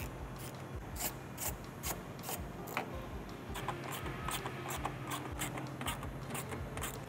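Hand ratchet backing out the bolts that hold the bumper cover to the car: irregular short bursts of ratcheting clicks as the handle swings back and forth.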